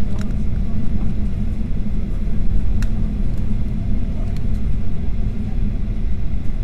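Steady low rumble inside the cabin of a Boeing 737-800 taxiing, its CFM56 engines at low power, with a few faint clicks.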